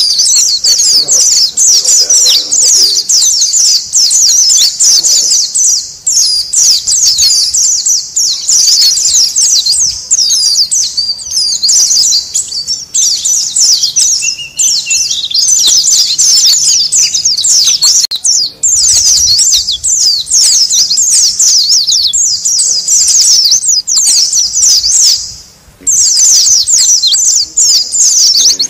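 A flock of white-eyes (pleci) chattering all at once, a dense, unbroken stream of rapid high chirps with a brief pause near the end. This is the noisy colony call used as a lure to draw wild white-eyes.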